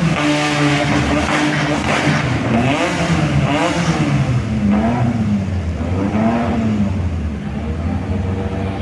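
Buggy engine revved in several blips, its pitch rising and falling, then settling to a steady idle near the end.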